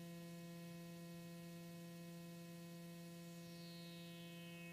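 Doepfer Dark Energy synthesizer holding a steady, low, buzzy square-wave tone. From about three seconds in, a faint whistling overtone glides downward as the resonant low-pass filter's cutoff is turned down, the resonance starting to ring on each edge of the wave.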